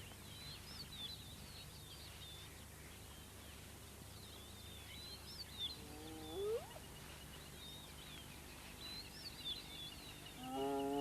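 Spotted hyena whooping: a short call about six seconds in and a longer, louder one near the end, each held low and then sweeping sharply up in pitch. Birds chirp faintly throughout.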